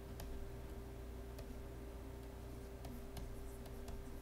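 Scattered light clicks and taps of a stylus writing by hand on a digital pen surface, a few irregular ones early and a quicker run near the end, over a steady electrical hum.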